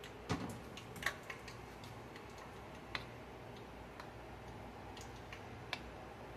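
A handful of faint, irregular clicks of a fork knocking against the side of a bowl as onion rings are turned in batter, over a low steady hum.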